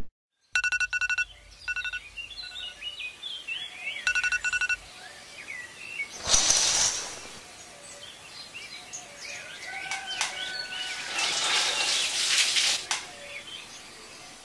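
Smartphone alarm beeping in short pulsed bursts with a vibrating buzz, stopping about five seconds in, then birds chirping, with two louder hissing swells about six and twelve seconds in.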